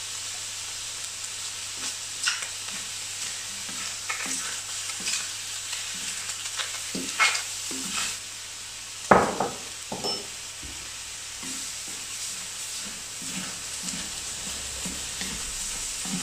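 Chicken pieces sizzling as they fry in a stainless steel AMC wok, with a wooden spatula scraping and knocking against the pan as the meat is stirred. The loudest knocks come about nine seconds in.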